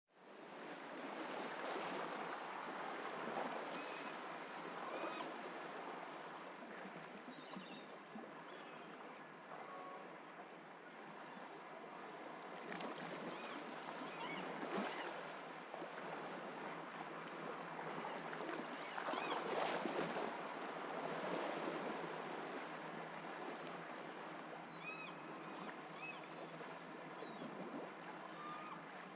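Ocean surf washing in and out, swelling and easing every few seconds, as a steady rushing wash of waves on a beach.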